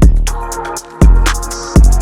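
Background electronic music with heavy bass-drum hits and a steady beat.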